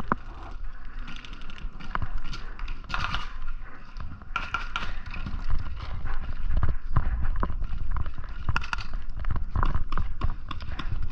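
Footsteps of a paintball player moving across dry grass, with his gear jostling: a string of irregular knocks and clicks.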